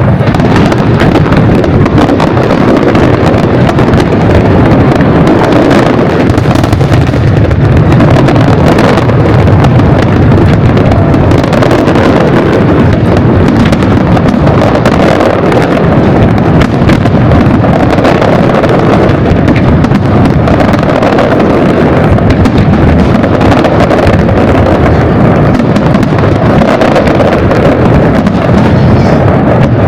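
Aerial fireworks going off in a dense, continuous barrage, a rapid run of booms and crackling bursts over a low rumble, very loud throughout with no pauses.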